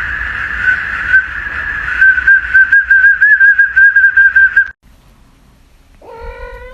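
A plastic pea whistle in a golden retriever's mouth, sounded by the dog's breath, gives a steady high note that turns into a fast trilling warble about two seconds in, then stops abruptly. Near the end a cat gives one short meow.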